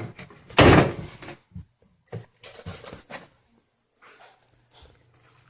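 Handling noises as parts of a small portable washing machine are worked with: a loud scraping rustle about a second in, followed by a few short knocks and clatters that fade toward the end.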